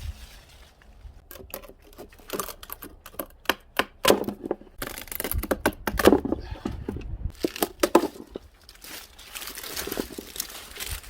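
Wood fire kindled with bamboo, crackling with frequent sharp pops and snaps of uneven loudness.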